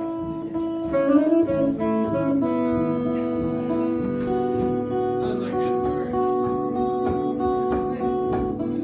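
Live acoustic guitar music with strumming, with long held notes sounding over it from about two seconds in.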